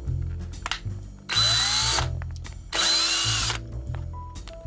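DeWalt cordless screw gun running in reverse, backing screws out of a bar of soap in two short bursts of about a second each. Its motor whine rises as it spins up and falls as it stops.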